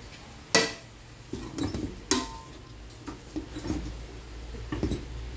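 A dish clinking and knocking against metal cooking pots as cooked rice is scooped from one pot and layered into another. There are two sharp, ringing clinks about half a second in and about two seconds in, another right at the end, and softer knocks and rustling of rice between them.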